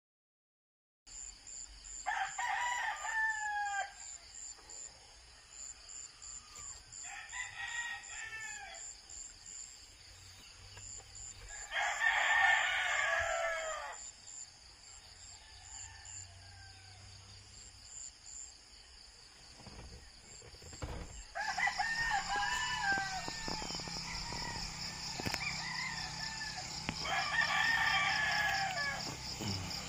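Roosters crowing about five times, each crow lasting one to two seconds, over a steady high-pitched chirring of insects that grows louder about two-thirds of the way through.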